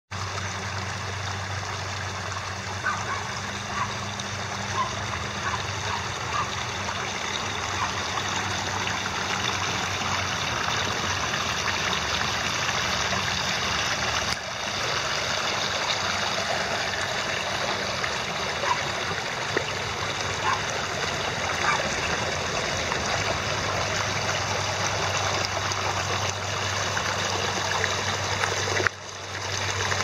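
Water of a pondless waterfall spilling over a stone ledge and running through a shallow gravel-and-boulder stream bed: a steady splashing trickle.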